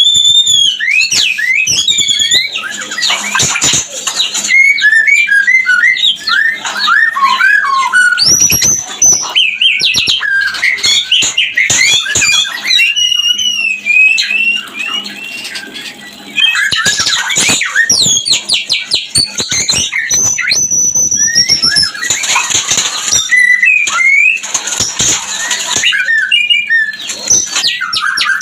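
White-rumped shama (murai batu) in breeding condition, singing a fast, varied run of whistles, trills and harsh chattering notes, with rising whistled sweeps near the end. This is the mating song used as a lure call to bring caged shamas into breeding mood.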